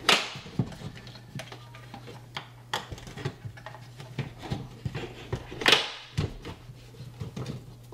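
Focal 300-series in-wall speaker being pushed into a drywall cutout: scattered clicks and knocks of its frame and spring-loaded dog-leg clamps against the wall. There is a louder snap at the start and another about two-thirds through as the clamps catch.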